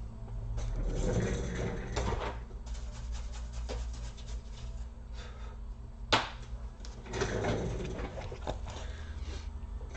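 Laptop parts being handled on a workbench: rustling and scattered small plastic and metal clicks, with one sharper click about six seconds in.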